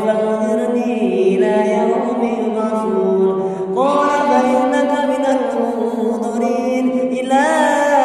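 A man's voice reciting the Qur'an in a melodic chanted style through a microphone, holding long notes, moving to a new note about four seconds in and turning a quick wavering ornament near the end.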